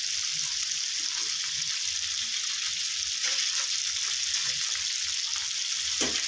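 Chicken thigh pieces sizzling in oil and dark soy sauce in a hot pan: a steady frying hiss with small scattered crackles.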